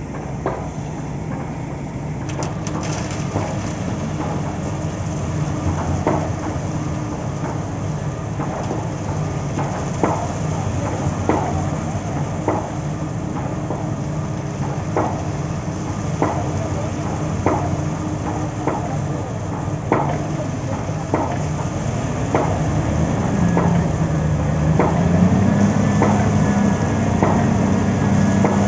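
Heavy construction machinery at a piling rig running steadily under load, with sharp metallic knocks repeating about every second and a quarter. The engine note rises in the last few seconds.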